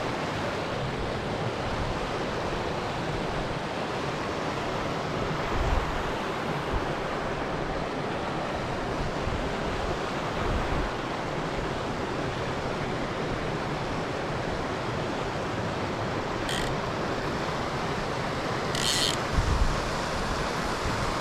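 Steady rush of a mountain torrent's flowing water, with a few low gusts of wind buffeting the microphone and two short hisses near the end.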